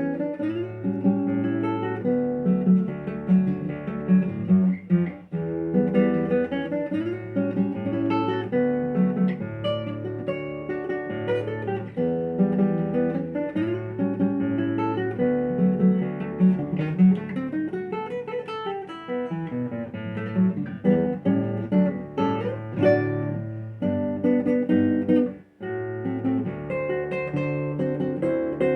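Solo Samuel Carvalho TS6 classical guitar playing a fingerpicked piece: plucked melody lines and quick runs over a steady alternating bass. There is a brief break in the playing about three-quarters of the way through.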